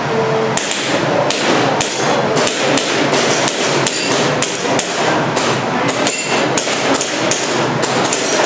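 A rapid string of airsoft pistol shots, roughly two a second, fired on a timed practical-shooting (IPSC) course of fire.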